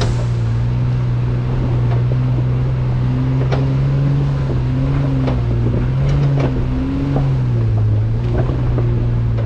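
Off-road 4x4 engine running steadily at low revs while crawling a muddy trail, with scattered knocks and rattles. The engine note drops a little about eight seconds in.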